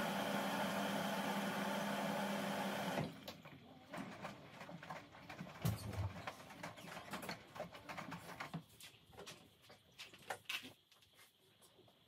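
Hoover H-Wash 350 washing machine mid-wash on a Cotton 60°C cycle: the drum motor hums steadily, then cuts off suddenly about three seconds in. After that come irregular clicks, soft knocks and a low thud from the wet towels and water tumbling in the drum, dying down near the end.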